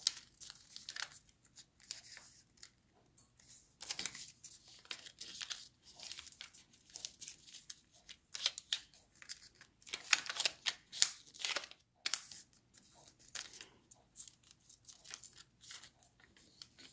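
A sheet of origami paper rustling and crinkling as it is folded and its creases pressed flat with the fingers, in short irregular bursts, loudest about ten seconds in.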